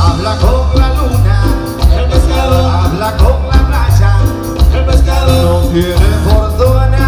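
Live cumbia band music, loud throughout, with a heavy bass line moving note by note under a pitched melody.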